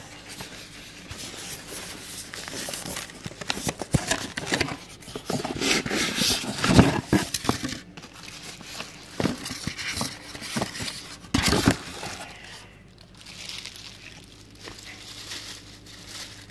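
Packaging being handled: a white foam packing insert scraping and creaking as a tweeter is worked out of it, and plastic wrapping crinkling, in irregular rustles that are loudest around six to seven seconds in, with a short sharp rustle about eleven seconds in.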